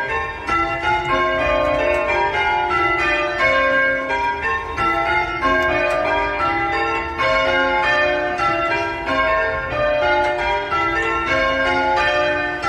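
Church tower bells rung in changes: a ring of bells struck one after another in a steady, even rhythm, each bell a different pitch, their tones overlapping and ringing on between strikes.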